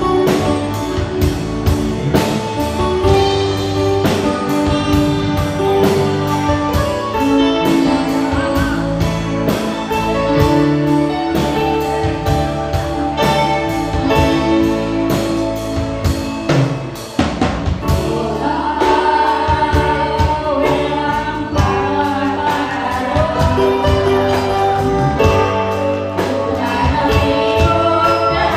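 A live band plays a song with a steady drum-kit beat and keyboard. Women's voices sing into microphones over it, more clearly in the second half.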